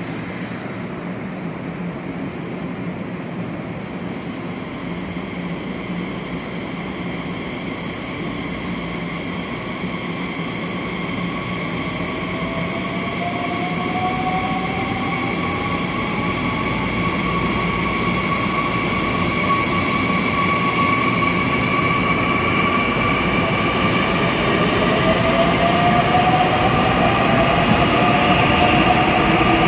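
Nishitetsu electric commuter train accelerating, its motor whine rising in pitch as it gathers speed, with steady running noise that grows louder throughout.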